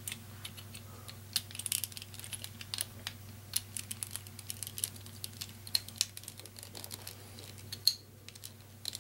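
Small plastic Rubik's Cube pieces clicking and clattering irregularly as they are handled and pressed into the partly rebuilt cube, with one sharper snap near the end.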